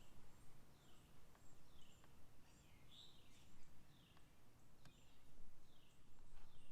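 Songbirds calling: a repeated short call sliding downward in pitch, about once a second, with thin high chirps from other birds over a faint low rumble and a few soft clicks.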